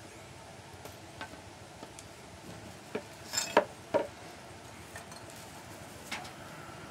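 A few sharp wooden knocks and clicks as a peeled cinnamon branch is set down and the sack cloth beneath is handled. The two loudest knocks come close together about three and a half to four seconds in, with lighter ticks scattered before and after.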